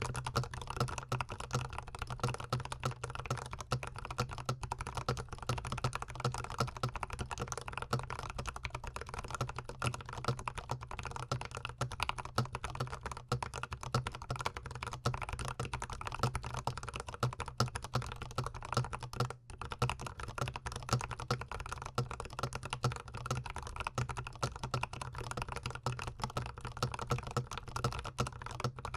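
Fast, continuous typing on a GMMK Pro gasket-mount mechanical keyboard, the keystrokes miked close up, with a brief pause about nineteen seconds in.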